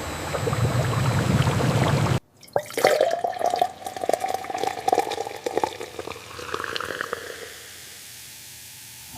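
Steady industrial machine noise with a low rumble that cuts off suddenly, followed by liquid pouring and splashing with clinks and drips, as in a bottle-filling line, easing into a faint steady hiss near the end.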